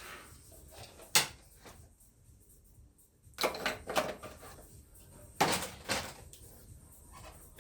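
Knocks and clatter of car parts and tools being handled while a car's front end is taken apart: one sharp knock about a second in, then two short bursts of clattering around the middle and a little later.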